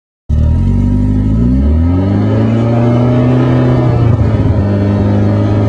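BMW E30 M3 S14 inline-four engine and exhaust note. It cuts in abruptly, revs up with the pitch climbing for about a second and a half, then holds at a steady higher speed, with a brief rough waver about four seconds in.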